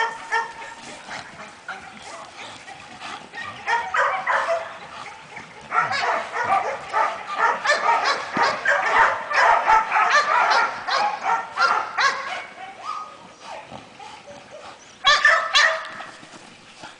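Excited dog yipping and whining over and over, with a louder burst of barks near the end.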